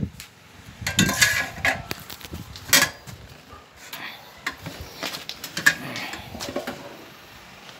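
A metal tire iron clanking and scraping against a steel wheel rim as it is worked around a manual tire changer to pry the tire bead off the rim. The clanks come irregularly, with the sharpest about a third of the way in.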